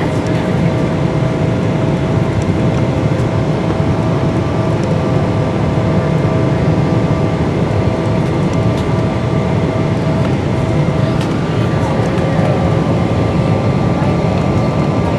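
Steady cabin noise of a Boeing 777-300ER on approach with flaps extended: a low rumble of airflow and GE90 engines, with a few steady humming tones, one of which stops about eleven seconds in.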